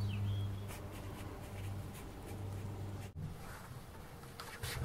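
Quiet room tone with a steady low hum and faint rustling. The sound drops out briefly about three seconds in, and a few faint clicks follow near the end.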